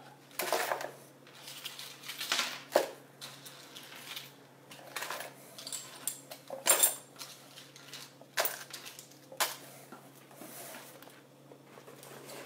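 Metal costume jewelry clinking and clattering as it is rummaged through and handled: an irregular string of light clinks and sharper clacks.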